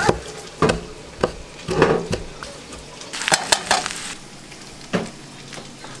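A knife cutting a small green chili on a wooden cutting board, then breakfast hash sizzling steadily in a skillet as it is stirred. About half a dozen sharp knocks and scrapes stand out, with a cluster of them about three seconds in.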